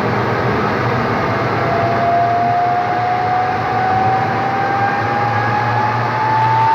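Jet engine running with a steady rush and a whine that climbs slowly in pitch as it spools up.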